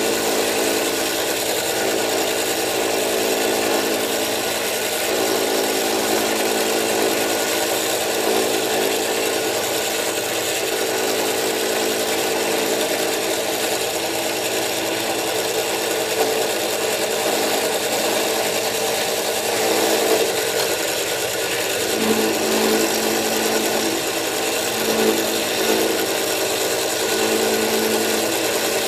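Milling machine running with its end mill cutting metal while the lock relief is milled into a frame lock knife's handle: a steady machine hum over cutting noise, with a lower tone that comes and goes in the last third.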